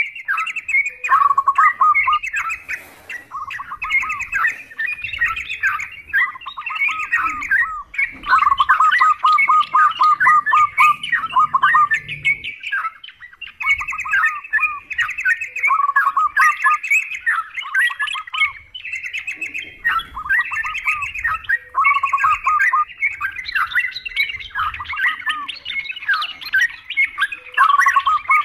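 Yellow-vented bulbuls chattering: repeated bursts of quick, bubbling notes, many run together into fast trills, with short breaks about eight and thirteen seconds in.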